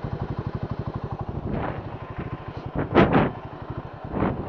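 Royal Enfield Himalayan 450's single-cylinder engine running at a steady rapid pulse, with a couple of short louder bursts about three seconds in and another near the end.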